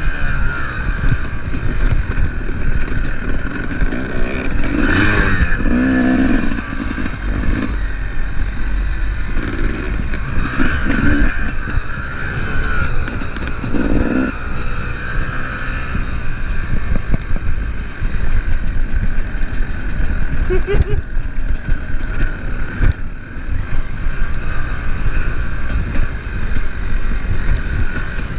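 Dirt bike engine running under a rider over rough grassy ground, its revs rising and falling as the throttle is worked, with a low rumble beneath.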